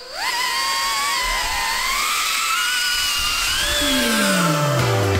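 Brushless motors of a small BetaFPV Pavo 30 cinewhoop drone whining as it spools up and flies. Several high whines rise in pitch at the start, then drift up and down with the throttle. Near the end a low falling sweep comes in under them.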